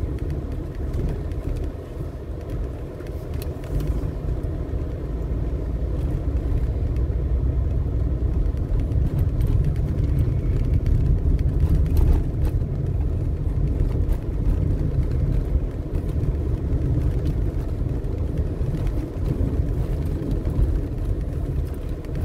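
Car driving along a city street, heard from inside the cabin: a steady low rumble of engine and tyres on the road.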